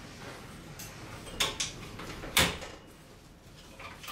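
Jobsite table saw's folding stand legs being handled and adjusted: a few sharp clacks and knocks, the loudest about two and a half seconds in.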